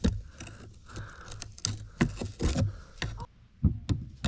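Pliers working at an old broken wooden handle stuck in a rusty metal tool head: a run of irregular clicks and knocks with short scrapes.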